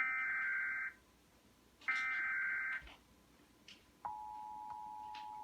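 Emergency Alert System signal on a TV broadcast: two SAME header data bursts, each a buzzy digital screech about a second long with about a second's pause between. About four seconds in, the steady two-tone EAS attention signal starts and holds.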